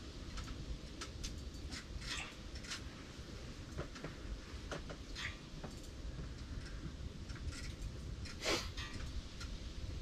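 Scattered light clicks and short rustles at an irregular pace, one louder rustle about eight and a half seconds in, over a low steady rumble.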